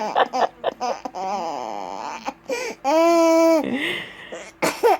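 A person's drawn-out fake sneeze: a wavering 'aah', a long steady 'aaah' held high, then a short breathy 'choo'. A baby laughs just before it and again near the end.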